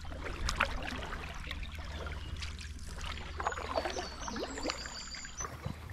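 Wooden canoe paddle stroking through calm river water: irregular dips, splashes, drips and gurgles as the blade pulls and lifts.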